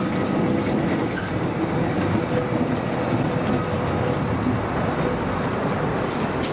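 Tram running along its rails: a steady rolling rumble with a faint steady tone held underneath.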